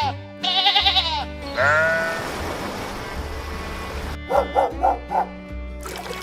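Background music with animal calls: a quavering, bleat-like call near the start, then a handful of short bark-like calls about four to five seconds in.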